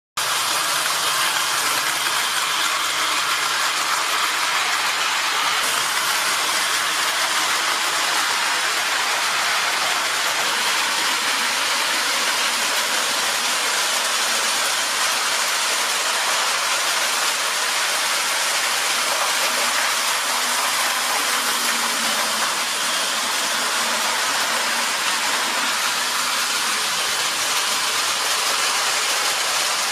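O-scale tinplate model trains running on metal three-rail track: a steady, even rushing hiss of wheels and motors.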